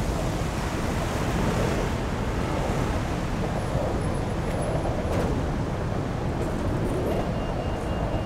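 Steady road traffic: cars and motorbikes passing on a busy road, with one short click about five seconds in.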